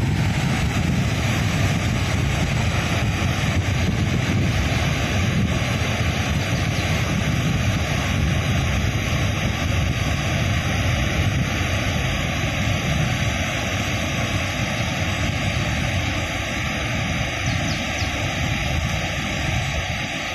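Steady roar of a wide waterfall and the foaming rapids below it, heavy and low, easing slightly near the end.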